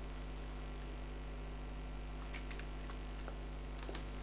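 Steady electrical mains hum from the recording setup, with a few faint clicks in the second half, likely computer keyboard keystrokes.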